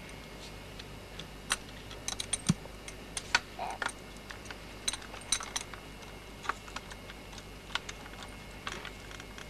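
Irregular sharp metallic clicks and taps of a wrench on the rear axle nut of a child's bicycle as a training wheel is taken off.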